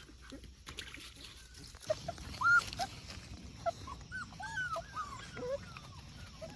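Puppies whimpering and yipping: many short, high cries that rise and fall in pitch, starting about two seconds in and going on in quick runs.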